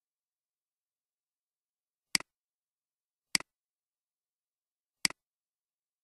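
Three computer mouse clicks, spaced a second or two apart. Each is a quick double tick: the button pressed, then released.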